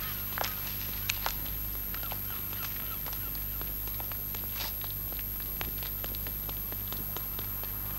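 Quiet soundtrack ambience: a steady low hum with scattered sharp clicks and ticks, and a few faint short calls in the first seconds.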